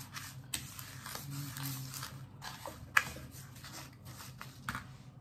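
A metal spoon stirring and scraping through seasoned breadcrumbs in a plastic plate, in short scratchy strokes, with one sharper click of the spoon against the plate about three seconds in.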